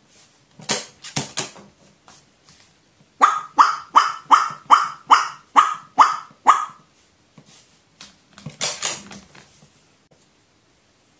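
Pet crow giving a rapid run of about nine 'wa-wa-wa' calls, a little over two a second, in the middle of the stretch, with a few rougher calls just before and again near the end. The calls are set off by a finger touching the crow: its 'wawawa switch'.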